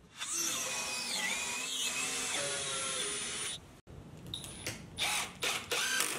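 Cordless drill driving screws into wood. The motor whines for about three seconds with its pitch dipping and rising, then runs in several short bursts near the end.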